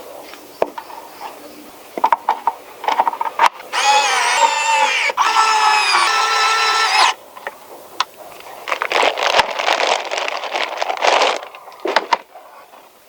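Handling and assembly noises from a model truck kit: clicks and knocks, then a wavering, squealing whine in two parts lasting about three seconds, followed by a few seconds of rustling scrapes.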